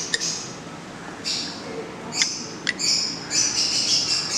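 Bird chirping in short, high-pitched calls that come thicker in the second half, with a few sharp clicks.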